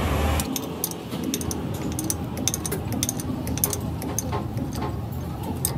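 A low engine rumble cuts off about half a second in, followed by irregular light metallic clicks and clinks, several a second.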